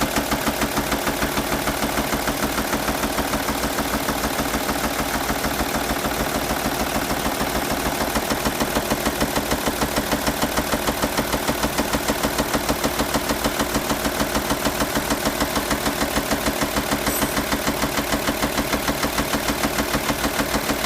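A 2.5 V6 TDI diesel engine idling steadily, with an even, rapid pulsing beat of several strokes a second.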